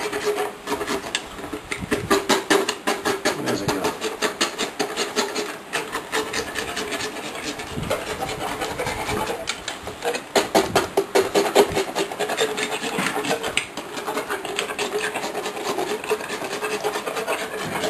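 Hand-held equine dental float rasping a horse's teeth in quick back-and-forth strokes, several a second, metal grating on tooth as the teeth are filed down.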